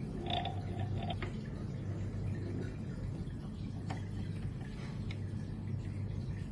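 A few light clicks and taps from hands handling a sewing machine and its thread, over a steady low hum. There is a brief squeak near the start.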